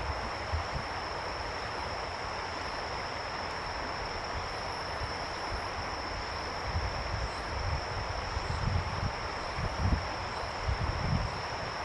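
Steady outdoor ambience: an even hiss with a steady high-pitched insect trill running through it, and low wind gusts buffeting the microphone, coming more often in the second half. No kite call is heard.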